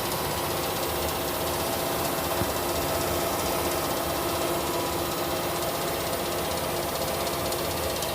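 Washing machine running with a steady mechanical hum and rattle.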